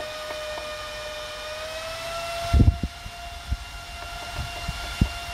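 Delta AFC0612DE 60 mm server fan spinning at high speed with a steady whine; its pitch rises about halfway through as the supply voltage is turned up from 8 to 9 volts. A few dull knocks are heard over it, the loudest about halfway through.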